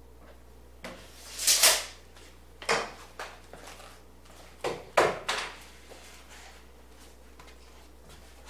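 Workshop handling noises while building a plywood ramp: a sliding scrape about a second and a half in, the loudest sound, then several sharp knocks of wood and tools being moved and set down.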